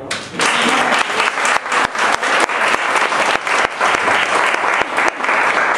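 Audience applauding: a steady round of hand clapping that starts at once.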